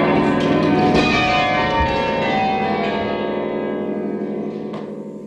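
The back eight tower bells of Gloucester Cathedral ringing, with their strikes thinning out and the sound fading away near the end. This is the close of the bells being rung down.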